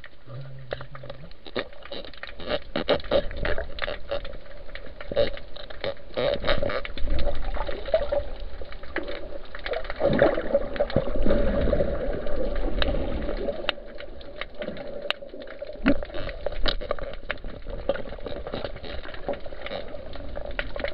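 Underwater sound heard through a diving camera's housing: water moving and bubbling, with many sharp clicks and knocks throughout. The rumbling is loudest between about 6 and 13 seconds in.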